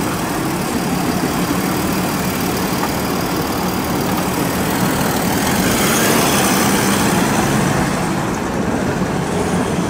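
Mercedes-Benz G-Class SUV's engine running steadily as the SUV pulls off the sidewalk and drives away, growing slightly louder about halfway through, with street traffic behind it.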